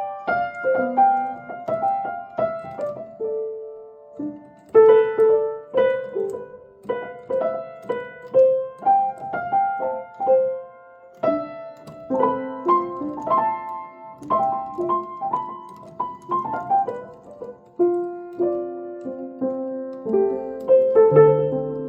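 1894 Kranich & Bach seven-foot grand piano being played: a melody of struck notes, each ringing and decaying, with chords and a few lower bass notes near the end.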